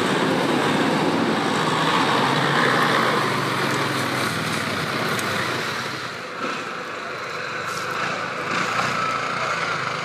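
An off-road 4x4's engine running as the vehicle drives, getting quieter about six seconds in.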